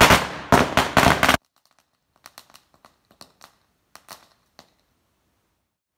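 Firecrackers going off: several loud bangs in quick succession over the first second and a half, cut off suddenly, followed by a few faint scattered crackles.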